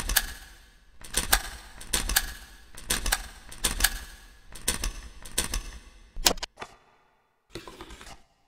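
Embossing label maker punching out letters: sharp mechanical clacks, about one every half second to second, then two lone clicks and a short scraping rustle near the end.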